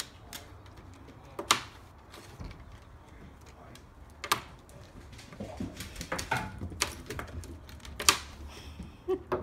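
Sharp clicks and taps from the pet flap of a screen door as a dog pushes through it and the flap swings back against its frame: three single clacks, with a flurry of lighter taps in the middle.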